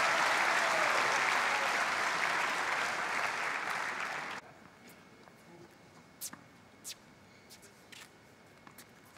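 Tennis crowd applauding in an indoor arena, cut off abruptly about four and a half seconds in. A quiet court follows, with a few sharp pops and taps from a rally in play.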